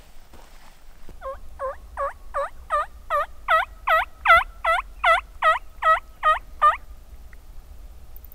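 Turkey call sounding a long run of about fourteen hen yelps, about two and a half a second, building in volume and then holding steady before stopping. It is a calling sequence thrown out to get a roosted tom to answer with a gobble.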